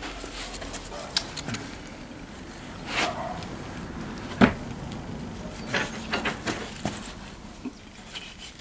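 A knife cutting through a pig carcass, with scattered short cracks and knocks; the loudest comes about four and a half seconds in.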